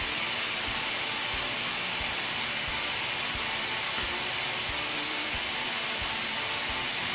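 A steady, even hiss with a few faint low knocks.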